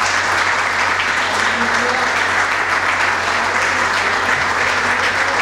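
Audience applauding: a dense, steady clapping.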